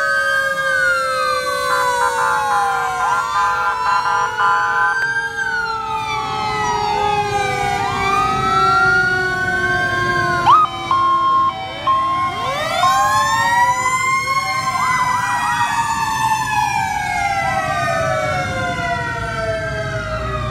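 Several fire truck sirens wailing at once, their pitches rising and falling out of step with each other, over the low running of the trucks' engines. A brief louder blast with short on-off tones comes about ten seconds in.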